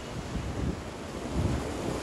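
Sea waves washing close by, with wind buffeting the microphone in low, uneven rumbles that swell about one and a half seconds in.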